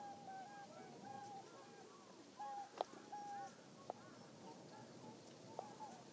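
Faint chorus of many birds giving short, level-pitched calls over and over, with a few sharp clicks about three, four and five and a half seconds in.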